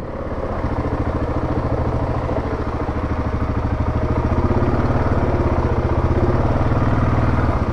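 Yamaha Grizzly 700 ATV's single-cylinder engine idling steadily.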